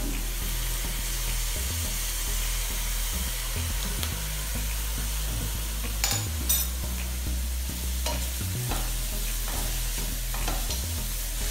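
Shredded cabbage, carrot and capsicum sizzling in oil in a pan while a wooden spatula stirs and turns them, with a few short knocks of the spatula against the pan.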